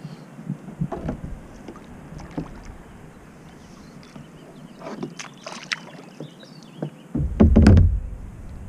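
Kayak paddle strokes: water splashing and the paddle knocking against the plastic hull in scattered strokes. Near the end there is a loud low thump and rumble lasting about a second.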